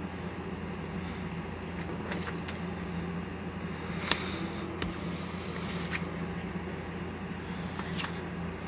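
Glossy paper leaflets being handled and set down on a cloth-covered table: a few light rustles and taps, with one sharp tap about four seconds in, over a steady low background hum.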